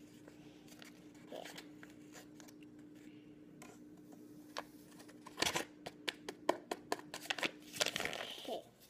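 Paper packet of pretzel mix crinkling and rustling as it is handled and shaken out into a bowl, with a cluster of sharp crackles in the second half. A faint steady hum runs underneath and stops near the end.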